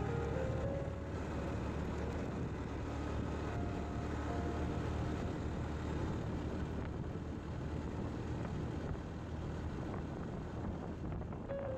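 Motorcycle riding at a steady speed: a continuous engine drone mixed with wind and road noise, with no change in pace.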